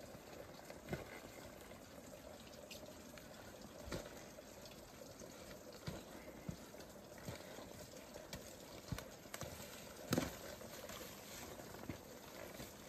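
Footsteps of a tramper climbing a steep bush track: boots knock and thud on rock and earth at irregular intervals, loudest about ten seconds in, over a faint steady rushing background.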